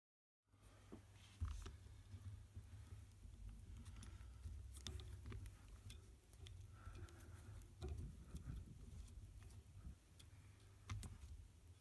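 Faint handling noise starting about half a second in: scattered small clicks and rustles as fingers work fine coil wire held in a drill chuck, over a steady low rumble.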